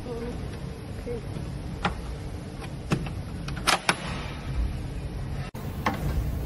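Quick-lock handle on an LED display cabinet being pushed home by hand, giving several sharp plastic-and-metal clicks, two of them close together and loudest, over a steady low background hum.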